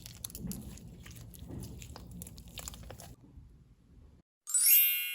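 Slime being pressed and squished, giving small sticky clicks and crackles that die away about three seconds in. After a moment of silence, a bright bell-like chime strikes near the end and rings out; it is the loudest sound.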